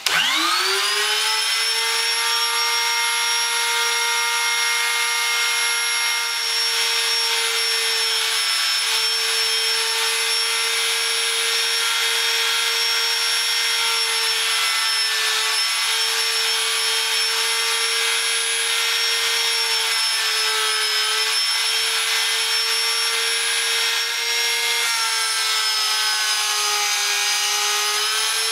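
Electric router switched on and spinning up to speed, then running with a steady high whine as it routes a radius into a guitar neck in a jig. The pitch dips a little a few times and sags for a couple of seconds near the end as the bit bites into the wood.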